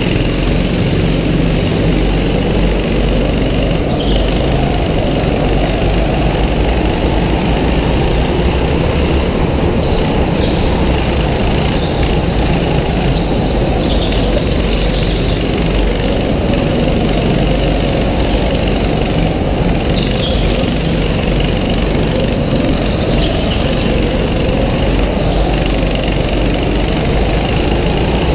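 Rental go-kart engine running hard, heard close up from an onboard camera on the kart, its pitch rising and falling as the kart accelerates and slows through the corners.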